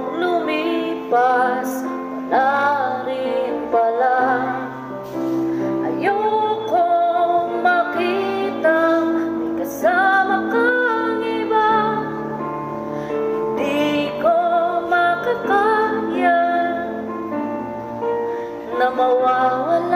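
A woman singing a slow melody with long held notes over steady instrumental accompaniment.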